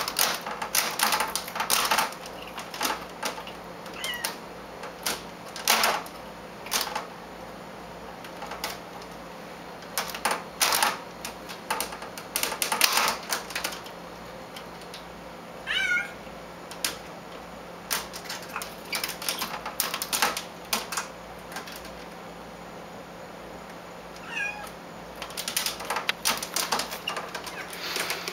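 A cat's claws catching and scraping on a window's mesh screen as it climbs, an irregular run of clicks and scratches, with a short meow about four seconds in, another around the middle and another near the end.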